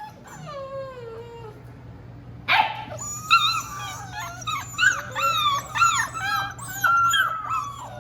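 Young Bernedoodle puppies whining and yelping: a long falling whine, a short sharp yelp about two and a half seconds in, then a run of short high-pitched whines and yelps from several pups at once.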